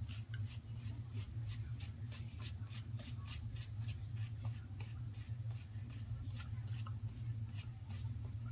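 Shaving brush working thick shaving lather in quick repeated strokes, about three a second, over a low steady hum.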